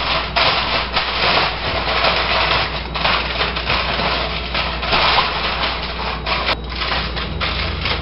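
Aluminum foil crinkling and rustling continuously as it is pressed and smoothed into a pan to line it.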